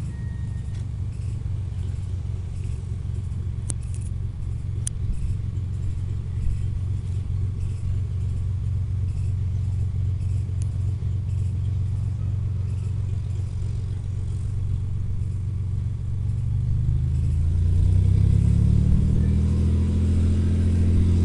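Cessna 205 Super Skywagon's single six-cylinder piston engine and propeller running at low power as the plane rolls along the runway, then rising in pitch and growing louder from about 17 seconds in as power is added for takeoff.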